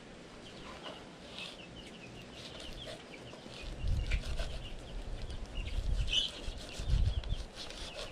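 Birds calling in the background, short chirps and clucks scattered through, with low rumbles about four and seven seconds in.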